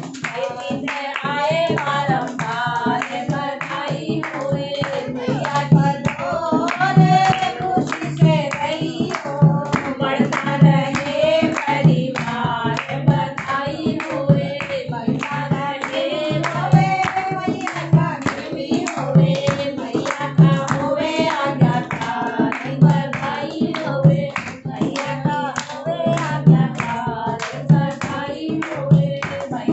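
Group of women singing a Hindi devotional bhajan together, with hand clapping throughout and a low drum stroke marking the beat a little more than once a second.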